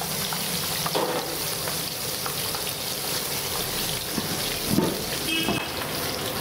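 Cut mirchi bajji pieces (battered green chilli) deep-frying in a large iron kadai of hot oil: a steady sizzling hiss as the cut pieces are fried a second time.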